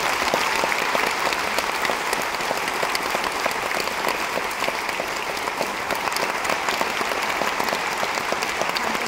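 Large audience applauding steadily, many hands clapping at once after a speech.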